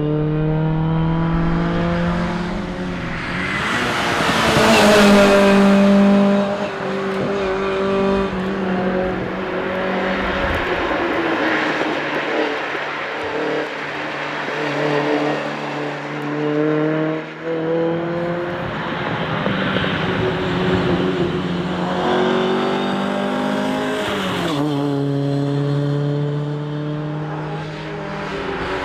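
Ford Cortina rally car's engine driven hard, its revs climbing and falling repeatedly through gear changes and corners, with a sudden drop in pitch about 24 seconds in.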